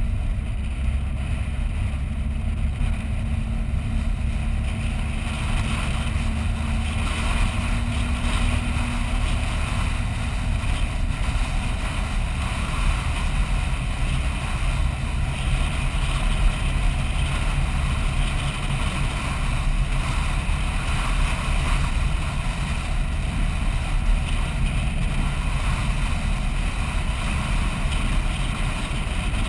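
A vehicle driving along beach sand: a steady low rumble of engine and tyres, with a hiss over it that grows a little stronger about seven seconds in.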